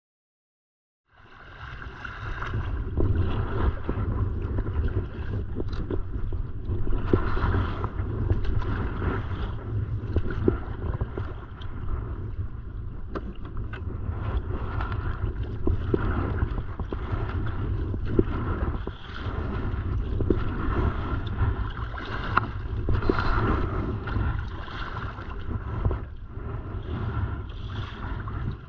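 Kayak paddle strokes splashing in choppy lake water, a swell of splashing about every two seconds, over steady wind rumble on the microphone. It starts about a second in.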